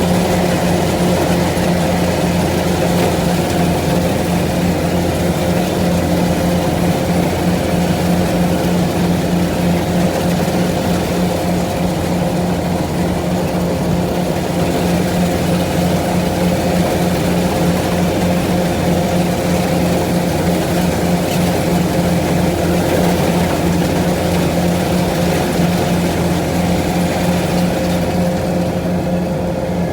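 Farm machine's engine running steadily at a constant speed, a loud even drone with a fixed low hum.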